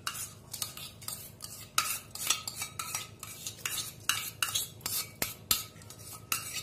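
A steel spoon clinking and scraping against steel kitchen vessels, many quick irregular strokes, about two or three a second, as soaked rice is scraped from a bowl into a pot of water.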